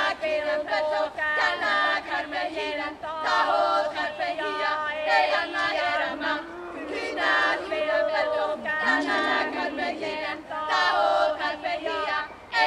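A group of voices singing together without instruments, several pitches at once.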